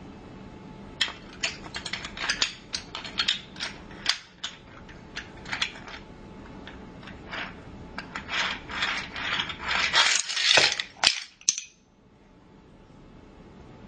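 Toy train set clicking and rattling mechanically. Irregular single clicks start about a second in, grow into a dense rattle around ten to eleven seconds in, and stop near twelve seconds, leaving only a faint hiss.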